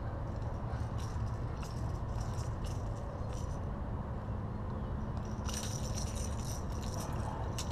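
Pliers and the metal treble hooks of a crankbait clicking and rattling as the lure is worked free of a largemouth bass's mouth. The light clicks come scattered, with a quick run of rattling about five and a half seconds in, over a steady low rumble.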